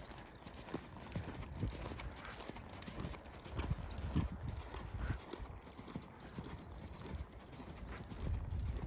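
Hoofbeats of a ranch gelding moving, an irregular run of dull low thuds, a few a second.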